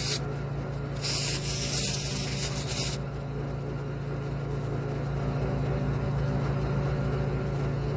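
A cleaning spray hisses onto the carburetor jets, with one burst from about one second in to about three seconds in. A steady low hum runs underneath.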